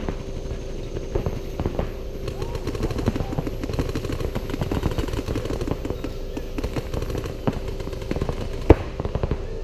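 Paintball markers firing in rapid strings of pops, several players shooting at once, with one sharp, much louder crack near the end. A steady hum runs underneath.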